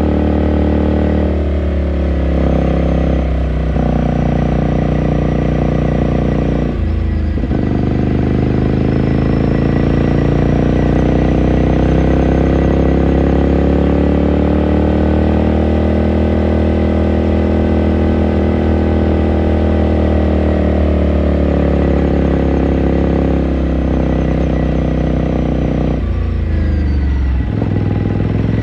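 2018 Ducati Scrambler Sixty2's air-cooled L-twin engine running under way, heard onboard. There is a gear change about seven seconds in, then the revs climb slowly, hold and ease off, with more quick shifts near the end.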